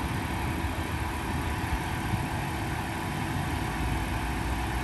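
Genesis GV80 SUV with its 3.5-litre twin-turbo V6 idling steadily as it creeps forward driverless under remote smart parking assist, with a steady low rumble.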